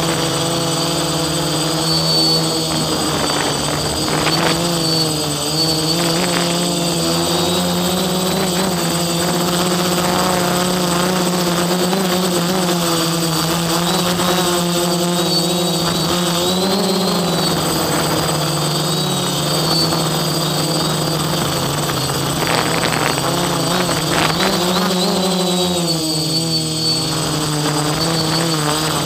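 DJI Flamewheel F450 quadcopter's electric motors and propellers whining steadily in flight. The pitch shifts up and down with throttle changes, most noticeably about halfway through and again near the end.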